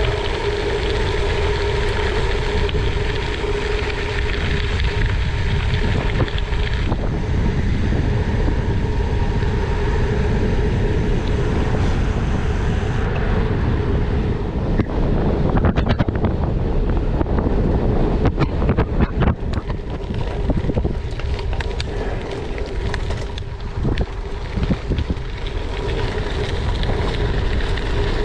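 Heavy wind rumble buffeting the microphone of a bike rider in motion, with a steady hum underneath that grows choppier and gustier in the second half.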